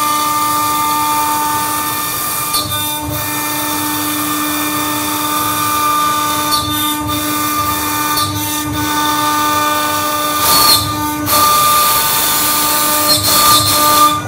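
CNC router spindle on an Omni 1325 mill whining steadily while its end mill cuts through acrylic and into the spoil board beneath, a sign that the cut has gone fully through the sheet. The cutting noise dips briefly every couple of seconds.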